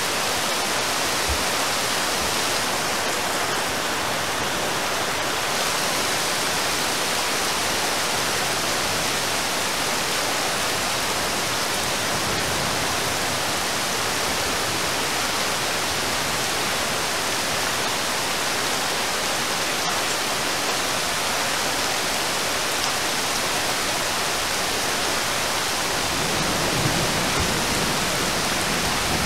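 Steady rain falling on a river's surface, an even hiss. A low rumble comes in near the end.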